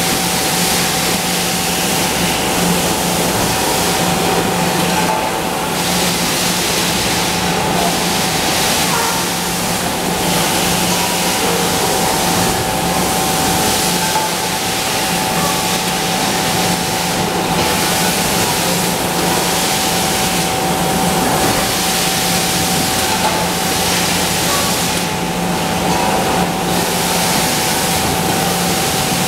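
Machinery of an aluminum cookware production line running: a steady, loud machine din with a constant low hum and a constant higher whine.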